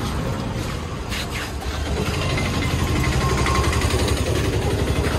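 A small motor vehicle's engine running steadily at low revs with a low, even throb. It grows a little louder about two seconds in.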